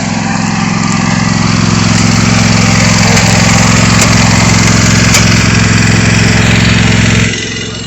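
Riding lawn mower's small engine running hard and steady, swelling over the first couple of seconds, then dropping off suddenly near the end.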